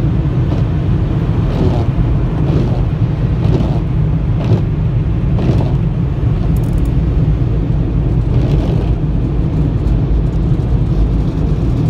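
Car wash dryer blowers running, a loud steady rumble heard from inside the car's cabin, with soft swishes about once a second from the windshield wipers.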